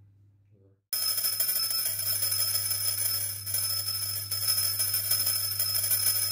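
Puja hand bell ringing continuously, a dense shimmer of high metallic tones that starts abruptly about a second in.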